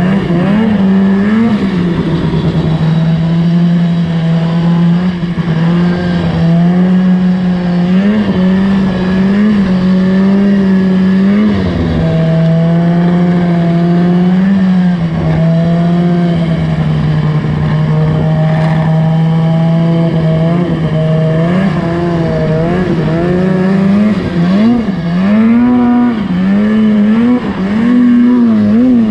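Polaris 600 Switchback Assault snowmobile's two-stroke twin running under way. It holds a steady drone at cruising speed, eases off once about halfway through, and rises and falls repeatedly in the last several seconds as the throttle is worked.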